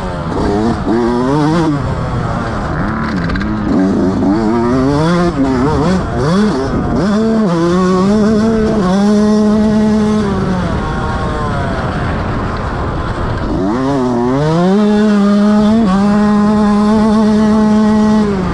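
Motocross bike engine under hard throttle, revs rising and falling quickly with throttle and gear changes, then held high in two long pulls, the second with a brief shift partway through.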